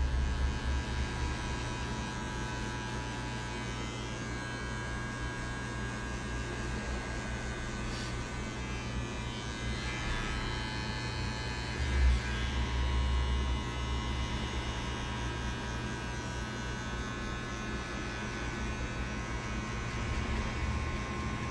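Electric hair clippers running with a steady buzz as they cut hair, with a brief low bump about twelve seconds in.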